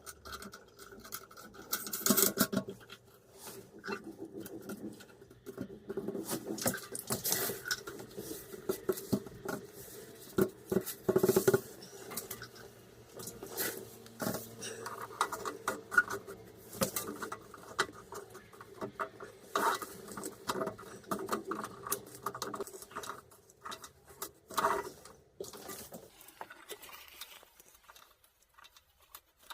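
Irregular clicks, knocks and scrapes of hands fitting a new plastic toilet fill valve into a ceramic cistern, with its fixing nut and supply hose being reattached. The clatter dies away near the end.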